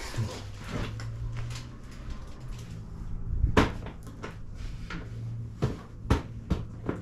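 Scattered knocks and clicks of hands and tools working on a dirt bike, the sharpest about halfway through and several more near the end, over a low steady hum.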